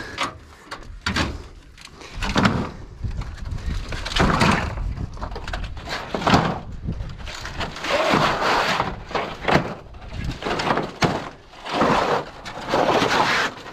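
Wooden boards laid as snake cover being lifted and shifted: a string of irregular scrapes and knocks of wood.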